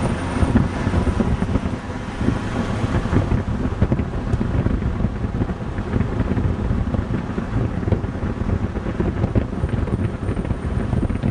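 Car driving along at speed, with a steady low rumble of road and engine noise and wind buffeting the microphone at the side window.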